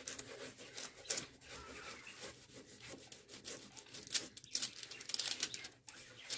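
Folded cloth rag rubbed in circles over cold wax on watercolour paper mounted on a birch panel, buffing off the excess wax: a faint, uneven run of rubbing strokes.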